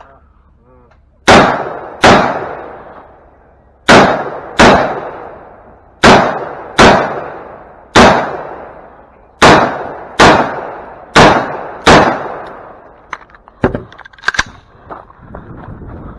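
Rifle fire on a shooting stage: eleven loud shots, mostly in pairs fired about two-thirds of a second apart with a pause of a second or more between pairs, each ringing out in a short echo. A few fainter sharp cracks follow near the end.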